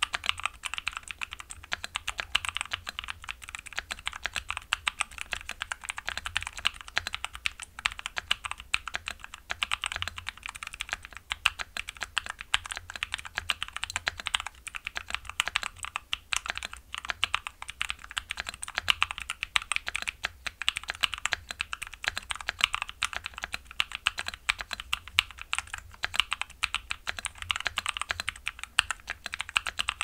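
Continuous fast typing on a modded Klim Shift mechanical keyboard with Blueberry Lemon switches and Cherry-profile dual-shot dye-sub PBT keycaps: a dense, unbroken stream of key clacks.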